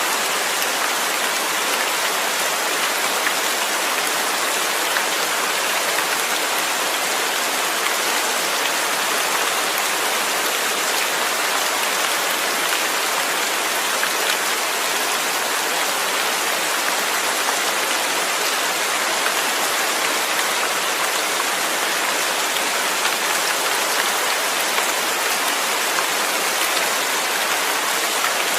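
Steady rain falling on a surface, a dense even hiss with faint scattered drop ticks.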